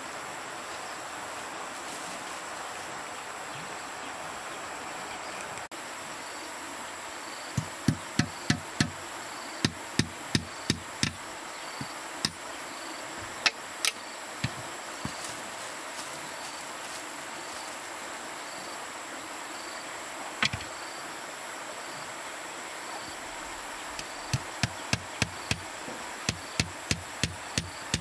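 Runs of sharp knocks from a tool striking wood, about three blows a second: a run of about ten blows about a third of the way in, a few single knocks after it, and another quick run near the end. Under them runs a steady hiss with a high, steady hum.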